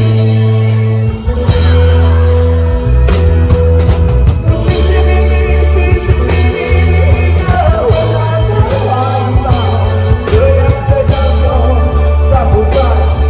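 Live rock band playing with heavy bass and drums, and a singer's voice coming in around the middle.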